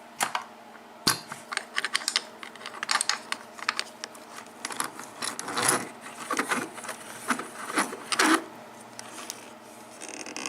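Small metal lock and lockpicking tools being handled: an irregular run of light metallic clicks and clinks, thinning out near the end.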